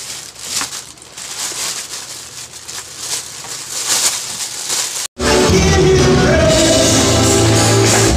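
Plastic packaging rustling and crinkling as it is pulled open by hand. About five seconds in, the sound cuts out and loud music with singing starts.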